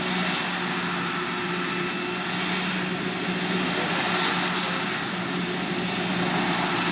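Heavy farm machinery running steadily while chopping maize: a constant engine hum under an even rushing hiss.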